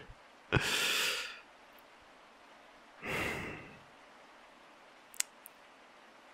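A man sighing: two breathy sighs about two and a half seconds apart, the first the louder, followed near the end by two faint clicks.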